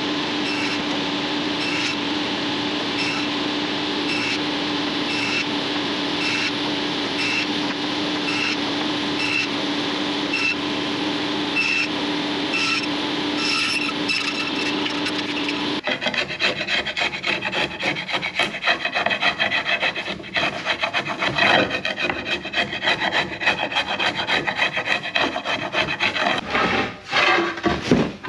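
Sliding-table panel saw running with a steady hum, then, from a little over halfway, a rough, rapid rasping as the blade cuts through marine plywood for the boat's transom.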